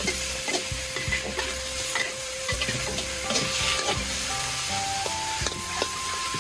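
Food sizzling as it fries in a pan while being stirred, with repeated clicks and scrapes of the utensil against the pan.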